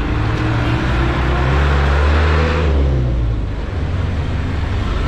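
A motor vehicle's engine running close by over street traffic, swelling about two seconds in and fading after three seconds as it passes.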